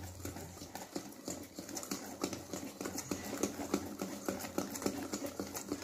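Wire whisk beating cake batter in a stainless steel bowl, its wires clicking and scraping against the bowl in a quick, uneven run of clicks.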